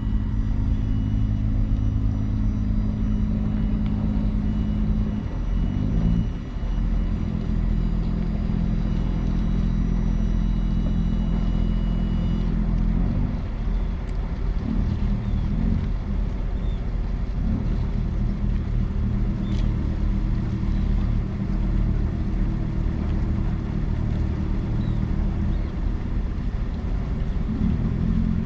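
The ferry MV Hoy Head's diesel engines running steadily with a low drone, with a faint high whine that stops about twelve seconds in.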